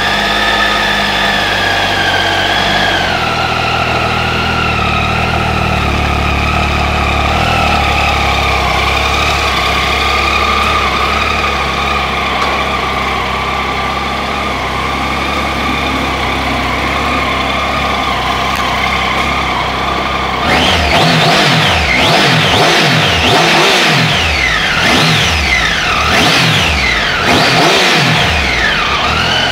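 A 2015 Triumph Tiger 800 XCx's inline three-cylinder engine idling steadily. About twenty seconds in, the throttle is blipped again and again, the revs rising and falling back in a series of quick sweeps.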